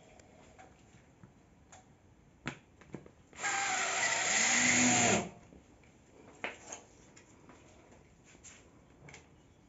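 Power drill-driver running for a little under two seconds, starting about three and a half seconds in, its motor pitch wavering as it drives a screw through a plasterboard washer into a ceiling joist. Light clicks and knocks come before and after it.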